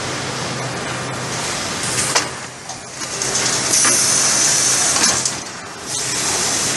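Giemme Altair 115 AL automatic shrink-packaging machine running with a steady mechanical hum as stacks of books are pushed along its roller conveyor. A loud hiss runs from about three and a half to five seconds in, with a sharp clack about two seconds in and another about five seconds in.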